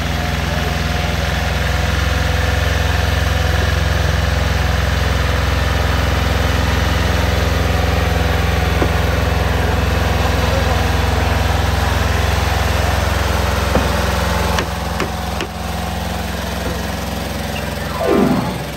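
Small tractor engine running steadily at low revs, with a deep, even hum, as it pulls a float past close by.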